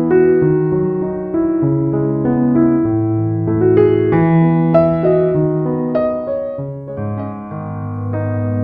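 Background music on a piano-like keyboard: slow, held notes and chords that change every half second to a second.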